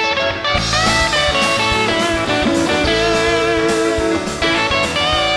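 Rock band playing an instrumental, an electric guitar carrying a bending melody over a steady drum beat with cymbals.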